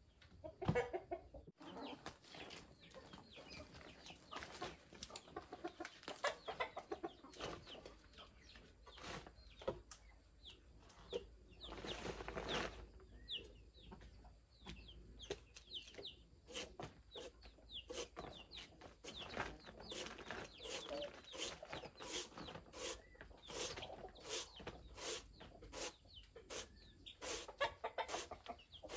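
Chickens clucking, with many short, sharp taps or clicks among the calls, coming quickly in the second half.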